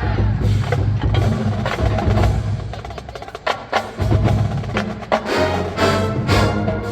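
College marching band playing a funk number: percussion keeping a steady beat over bass, with the horns coming in strongly on sustained chords about five seconds in.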